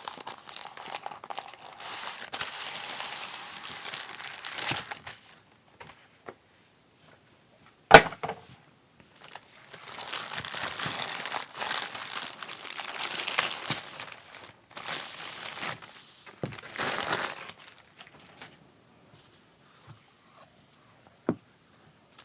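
Packaging of a Keychron palm rest crinkling and rustling as it is unwrapped, in several long bursts, with one sharp knock about eight seconds in and a small knock near the end.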